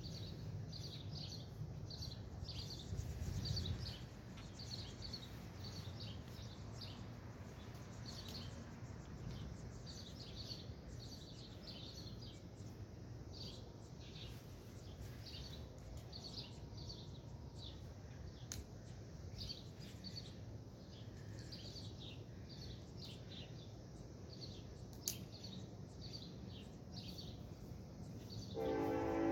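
Small birds chirping over and over above a steady low rumble of background noise. Near the end a louder, sustained pitched sound comes in.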